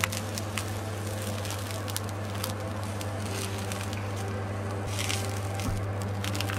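Eggplant slices frying in a little olive oil in a nonstick pan: a steady crackling sizzle with small pops, over a steady low hum. A click of metal tongs near the start as the slices are turned.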